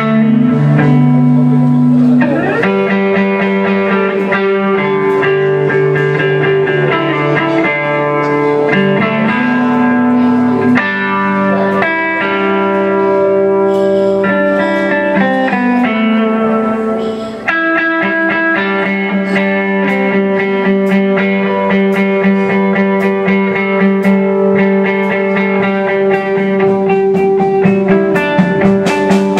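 Live rock band playing an instrumental passage: electric guitars ring out sustained chords and notes over drums and cymbals, with no singing.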